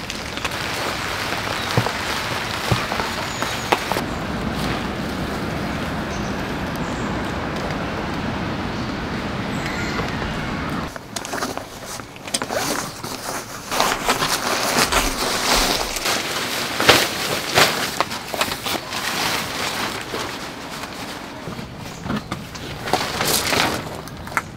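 Heavy rain falling steadily on tent fabric for about the first ten seconds. After that it is quieter and broken, with rustling fabric, the clicks of gear being handled, and a few footsteps on gravel.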